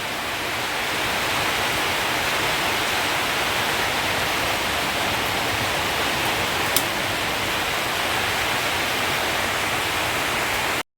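Heavy rain falling in a steady downpour, an even hiss with one faint click about seven seconds in; the sound cuts off abruptly just before the end.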